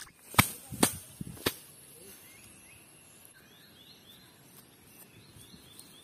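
Three sharp snaps in quick succession in the first second and a half, then faint, repeated high chirping against a quiet background.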